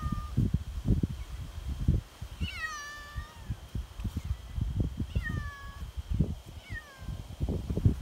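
Feral cat meowing from an open pet carrier: three short meows, each falling in pitch, the first the longest. Low irregular rumbling on the microphone runs under them.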